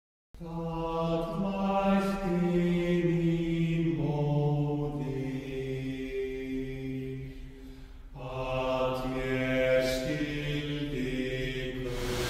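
Background music of slow, chant-like vocal tones, each held for several seconds, the notes shifting about 4 and 8 seconds in.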